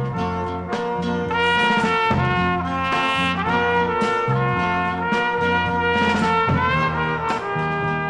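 Big band recording with the brass section playing held chords over a bass line that steps from note to note, with a steady beat.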